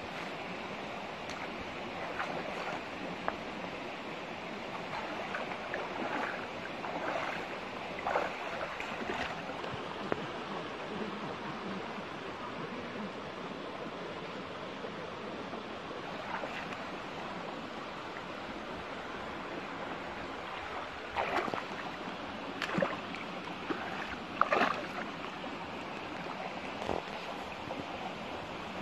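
Shallow rocky stream running steadily, with scattered short splashes and sloshes of water from someone wading and reaching into it by hand; the loudest few come about three-quarters of the way through.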